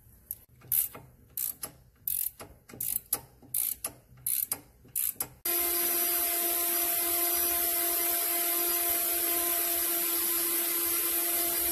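Hand ratchet wrench clicking in short strokes as the nylon locking nuts are run down on the air-spring bottom plate's U-bolt. About halfway through, a steady hiss with a low hum starts suddenly and runs on.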